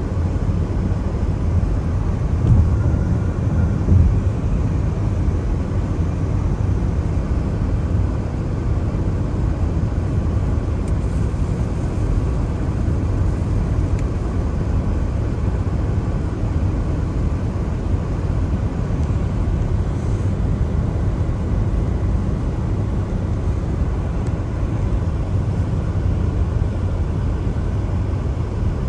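Car driving on a wet road in the rain: a steady low rumble of road and tyre noise, with two brief louder bumps a few seconds in.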